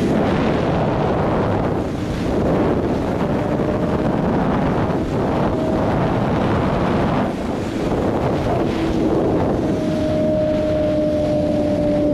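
Wind rushing over the microphone at speed, with the BMW S1000RR's inline-four engine running underneath at a steady cruise. The engine note holds level, clearest near the end.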